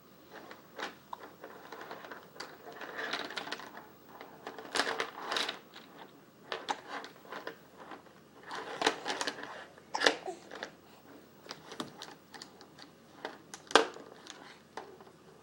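Plastic baby toys on an ExerSaucer activity-seat tray clicking, knocking and clattering in irregular bursts, with the sharpest knock near the end.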